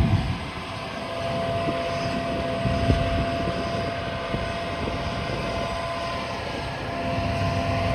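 Large diesel farm machinery running steadily: a low engine drone with a thin, constant whine over it.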